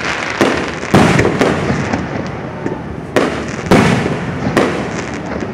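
Fireworks display: aerial shells bursting overhead in a string of sharp bangs, about seven in five seconds, each trailing off in an echoing rumble.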